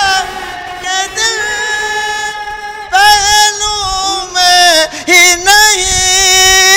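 Naat sung by a single male voice without instruments, holding long wavering notes that glide between pitches, with short breaks between phrases.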